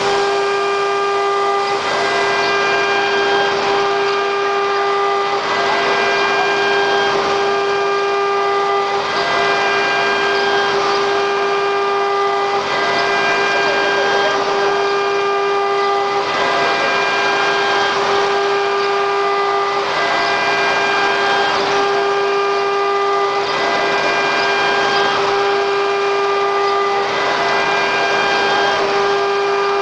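Spindle of a QS6090 CNC router running at high speed with a steady high whine while it cuts, with a hissing cutting noise that swells and eases every second or two.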